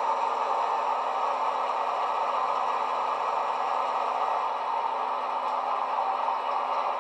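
ESU sound decoder in a Piko Rh 2016 model locomotive playing a recorded MTU diesel engine idling steadily through its small speaker, which gives a thin, tinny sound with no deep bass.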